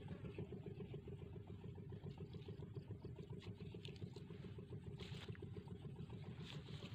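A low, steady engine hum, as from a motor running some way off, with a few faint clicks about two-thirds of the way through.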